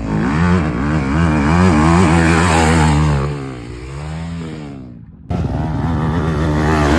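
Dirt bike engine revving, its pitch rising and falling, then dying down about five seconds in. After a sudden cut, a dirt bike engine is heard running steadily again.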